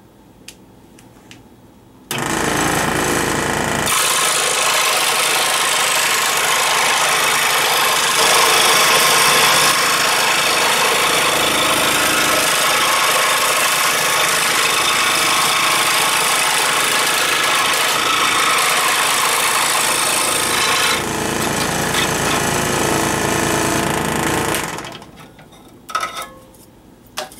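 Ryobi 16-inch variable-speed scroll saw switched on about two seconds in, its reciprocating blade running and cutting a plywood blank. It is switched off near the end and winds down, followed by a couple of light knocks as the wood is handled.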